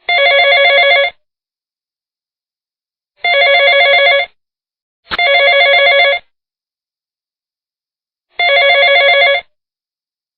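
Telephone ringing: four separate rings of about a second each, each a fast trilling electronic ring, with silence between them. A sharp click opens the third ring.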